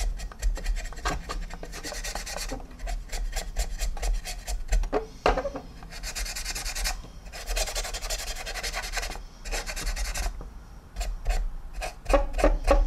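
Stiff paintbrush scrubbing oil paint into the plastic surface of a scale model helicopter, in spells of rubbing strokes that last one to three seconds, with small clicks and knocks as the model is handled between them.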